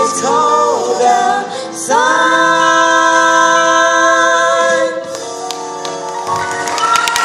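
A choir singing the song's final word, a long chord that swells about two seconds in and softens near the end. Audience cheering and clapping start just as it finishes.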